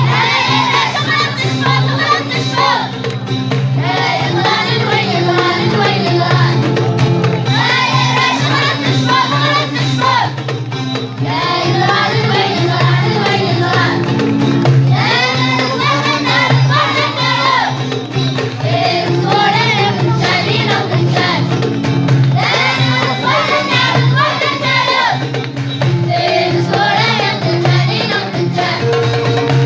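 School children's vocal group singing an Amazigh (Berber) song in phrases over an instrumental backing with a steady low drone.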